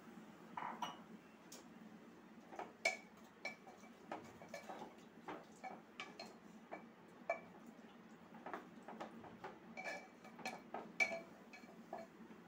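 Wooden spatula stirring and knocking against the inside of an aluminium pressure cooker: irregular light knocks and scrapes, several with a brief metallic ring.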